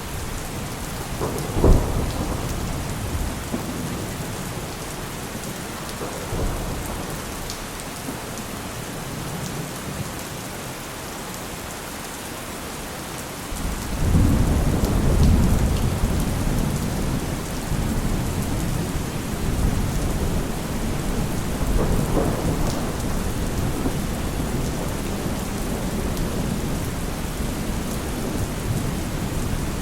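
Heavy rain falling steadily with thunder: a sharp clap about two seconds in, then about halfway through a deep rumble of thunder sets in suddenly and keeps rolling under the rain, swelling again near the end.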